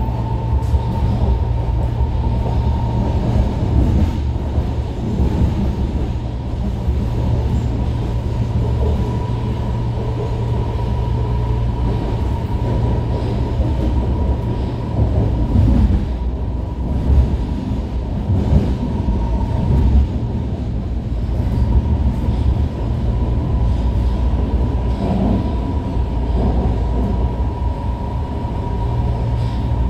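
BART legacy-fleet train car running at speed through a tunnel, heard inside the car: a loud, steady rumble of wheels on rail with a steady high whine from the train and a few short clatters about halfway through.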